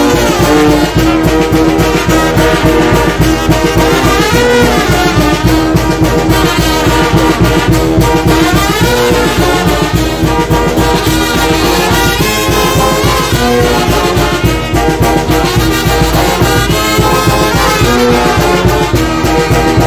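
Traditional Mexican brass band playing live: trumpets, trombones, tuba and alto horns over a bass drum and hand cymbals keeping a steady beat.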